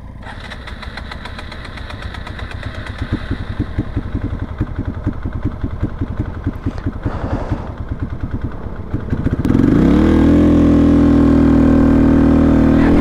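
Hero XPulse single-cylinder motorcycle engine starting and running with uneven, pulsing beats, then revved hard about nine and a half seconds in and held at high revs as the bike pulls away. It is struggling for oxygen at high altitude.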